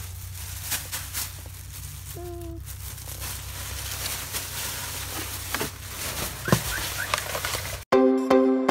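Low steady rumble of a car, heard inside the cabin, with scattered clicks and rustles and a short steady tone about two seconds in. Music starts abruptly near the end.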